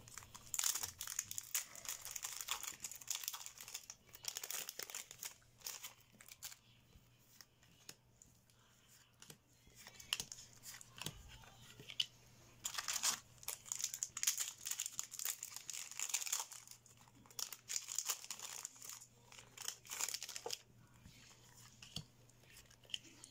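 Foil booster-pack wrappers crinkling and trading cards rustling as they are handled, in irregular bursts of crisp crackle with quieter gaps.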